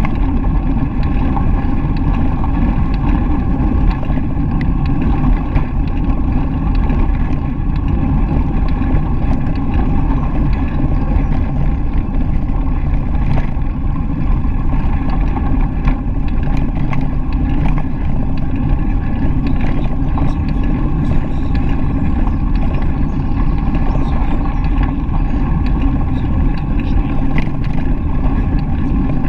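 Steady loud rumble of a bicycle ride: wind on the camera's microphone and tyres rolling over a gravel path, with a few small clicks from bumps.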